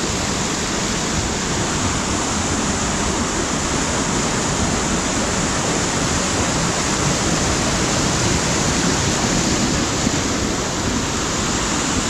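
Waterfall and small cascades pouring over rocks: a steady, unbroken rush of falling water.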